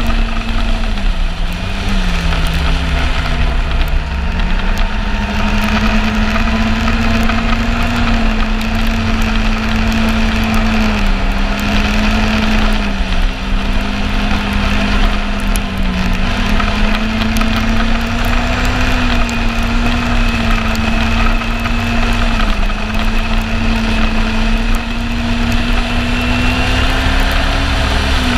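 Yamaha Apex snowmobile's four-stroke engine running under way over a low rumble. Its pitch eases off and picks back up several times as the throttle is varied, most deeply a second or two in.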